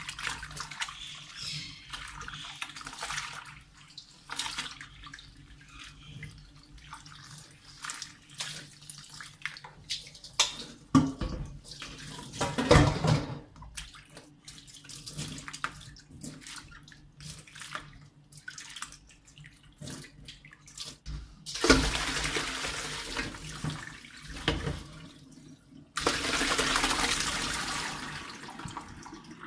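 Water from a tap running into a sink in two bursts, the second a few seconds after the first, amid clicks and knocks of things being handled, with one louder knock about 12 seconds in.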